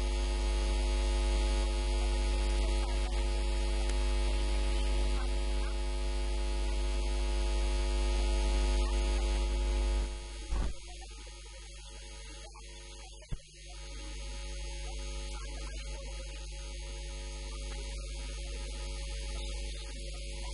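Steady electrical mains hum with a buzz of evenly spaced overtones. About halfway through it drops to a lower, thinner hum, and there is a single click a few seconds after that.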